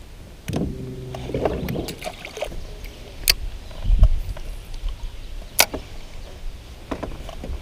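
Handling noise in a small boat: several sharp clicks and knocks and a couple of low thumps, with a short pitched rattle near the start.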